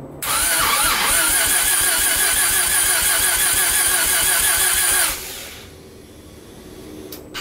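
Bridgeported Mazda 13B-REW rotary engine cranking over on its starter with an even, repeating rhythm for about five seconds, then stopping without catching. It is a cold start that keeps failing, which the owner takes for a flooded engine.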